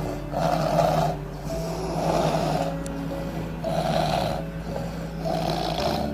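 Sleeping people snoring, a rasping snore roughly every second and a half.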